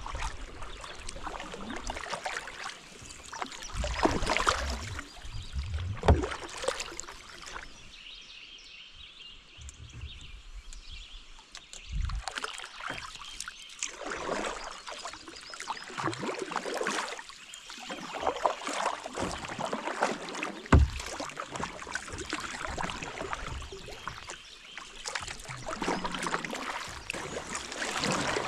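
Double-bladed kayak paddle strokes dipping and splashing in calm river water, alternating sides every couple of seconds, with water dripping off the blades. There is a short lull in the strokes around ten seconds in, and two sharp knocks stand out, one about six seconds in and one about twenty-one seconds in.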